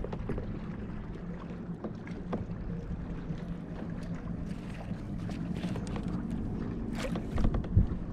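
Small knocks and clicks against a kayak over a steady low hum, with a louder thump near the end.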